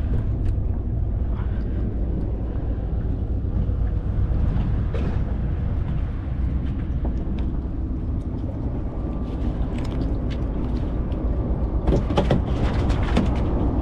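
Steady low rumble of wind on the microphone over open water, with a few sharp knocks and rattles near the end as the handline is worked against the boat's gunwale.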